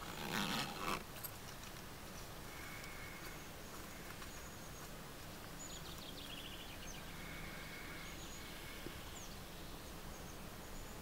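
Faint outdoor ambience with distant small birds calling: short whistled notes, a rapid trill about six seconds in and a quick falling whistle a few seconds later. A short, harsh rush of noise in the first second is the loudest thing.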